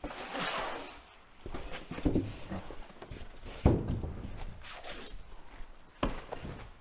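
Cardboard packaging being handled: rustling and scraping, with footsteps on a hard floor. Two sharp thuds, one a little past halfway and one near the end.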